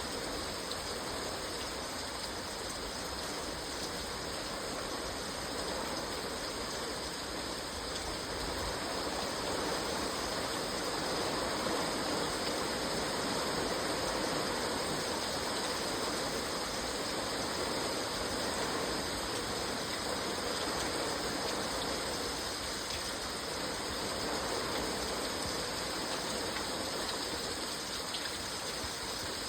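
Steady rain falling, an even rushing hiss of water with no let-up.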